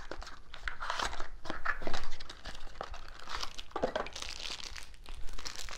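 Thin plastic packaging crinkling and rustling in the hands as a small practice scanning model is unwrapped, in short irregular crackles.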